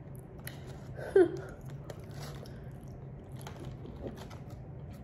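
Close-miked chewing of chicken wings, with paper wrapper rustling and light fork clicks. A brief voiced sound about a second in.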